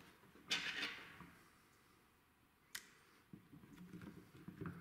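Faint handling noises on a steel-receivered rifle being reassembled: a brief scrape about half a second in, a single sharp click near the three-second mark, then light ticks and rustles near the end.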